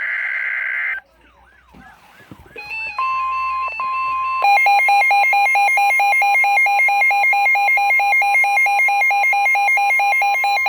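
Emergency Alert System / NOAA Weather Radio alert tones: a harsh digital data burst for about a second, then after a short pause a steady high alert tone. About four seconds in, a loud, rapidly pulsing warble joins it, the attention signal before the next warning is read.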